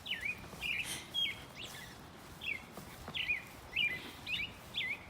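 Small songbird chirping repeatedly: short, sharply falling chirps, about two a second, over faint outdoor background noise.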